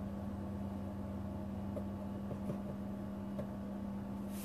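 A steady low hum, with a few faint, light ticks scattered through it.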